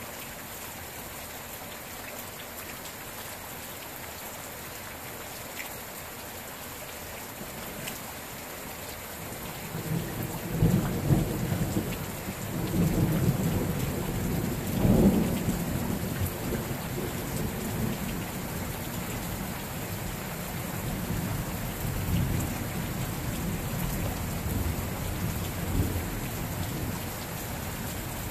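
Steady rain falling, with a long roll of thunder that begins about ten seconds in, peaks twice in the next few seconds and then rumbles on more softly as it fades.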